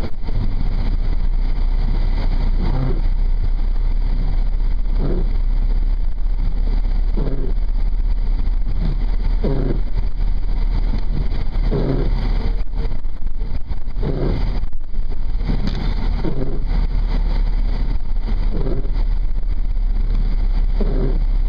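Steady low engine and road drone heard from inside a moving vehicle's cabin, with a short swell recurring about every two and a half seconds.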